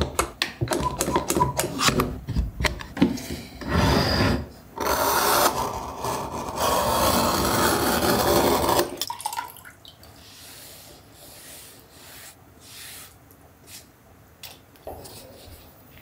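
A quick-release bar clamp is ratcheted shut in a quick run of clicks. Then a utility knife is drawn through leather along a metal rule in long scraping cuts, followed by quieter handling clicks.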